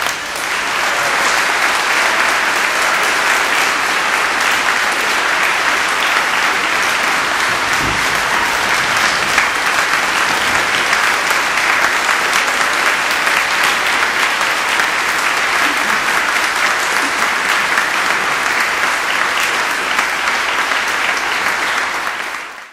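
Congregation applauding steadily in a large church hall, many hands clapping at once; it stops abruptly near the end.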